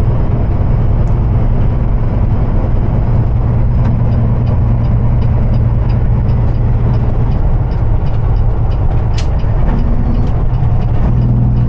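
Cummins diesel engine of a Peterbilt semi truck running steadily as it drives, heard from inside the cab as a low drone with road noise. Faint regular ticking sounds through it for a few seconds.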